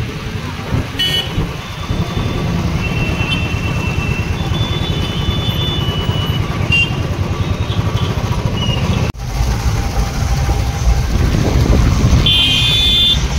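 Royal Enfield motorcycle riding through city traffic: a steady low engine rumble with wind on the microphone, and other vehicles' horns tooting, with a loud honk near the end. The sound breaks off for an instant about nine seconds in.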